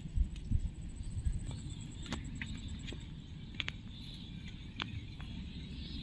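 Outdoor ambience: a steady low rumble with a few soft thumps in the first second and a half, and scattered faint high chirps and clicks.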